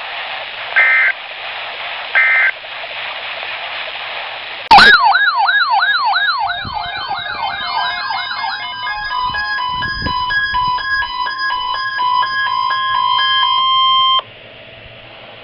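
Weather-radio hiss with the last two short two-tone data bursts of an Emergency Alert System end-of-message code, then a loud electronic alarm: rapid repeated swooping whoops that change to stepped, alternating beeping tones, cutting off suddenly near the end.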